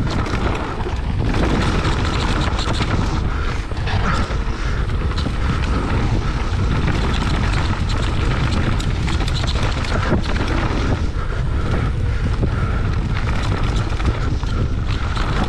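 Mountain bike descending a dirt forest trail at speed, filmed from the bike: wind buffeting the camera microphone as a steady rumble, with tyres rolling over dirt and frequent knocks and rattles from the bike over bumps.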